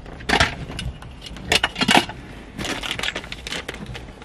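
Rustling, crinkling and light clattering of trash and small items being handled inside a car cabin, in irregular bursts, loudest about half a second and two seconds in.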